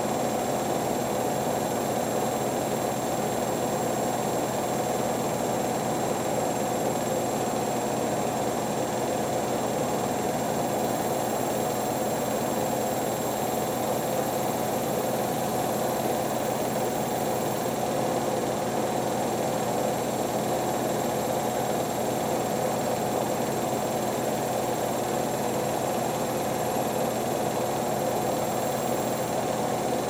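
Two washer-dryers, a Hotpoint WD440P and a Hoover Nextra, running side by side with a steady mechanical hum that holds an even pitch and level, with no rise or fall in speed.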